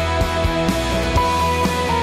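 Background music with held notes over a beat.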